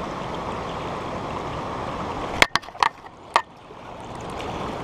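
Steady rush of fast river water. About halfway through come four sharp knocks within about a second, after which the rushing drops quieter and slowly builds back.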